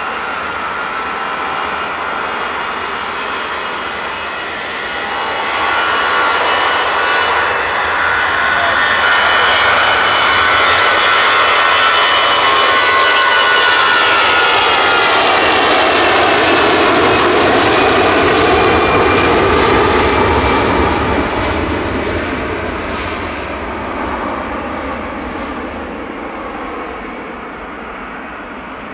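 Airbus A321-211's twin CFM56-5B turbofan engines at takeoff thrust during the takeoff roll: a steady jet engine noise with fan whine that grows louder about five seconds in, stays loudest as the aircraft passes, then fades as it rolls away, the whine dropping in pitch as it goes by.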